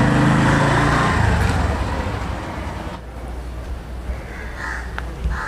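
A motor vehicle's engine running close by, loud at first and fading away about two seconds in, leaving a quieter street background.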